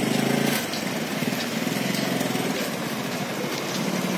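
A vehicle engine idling with a steady low drone, slightly louder in the first half second.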